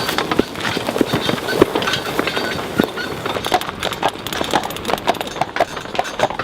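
A working horse's hooves clopping as it walks, among irregular knocks and rattles.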